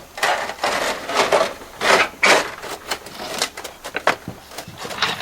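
Copper apron flashing being handled and pressed into place, giving a run of short rubbing, crinkling noises of sheet metal.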